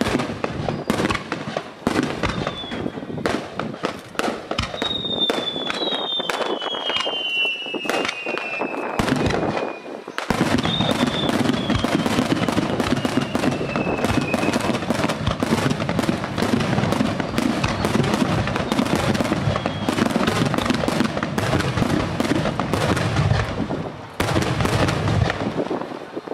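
Aerial fireworks display: a rapid run of bangs and crackles from bursting shells. A few high whistles glide down in pitch around five and eleven seconds in. From about ten seconds in, the bursts merge into a dense, continuous crackling barrage.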